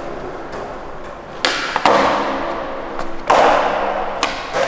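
Skateboard on a concrete floor: wheels rolling, with several sharp clacks of the board striking the ground, each ringing out in the long echo of an underground parking garage.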